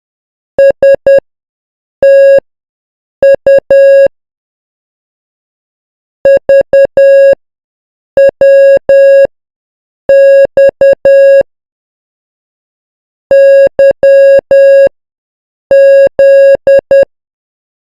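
Morse code tone sending the letters S, T, U, V, W, X, Y and Z in turn at 10 words per minute: a steady beep keyed in short dits and long dahs, with a pause of about a second between letters.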